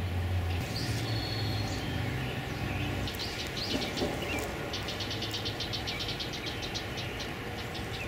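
Small songbirds chirping in quick trilled runs, the longest run about five seconds in, over a low steady engine rumble that is strongest in the first three seconds and then eases off.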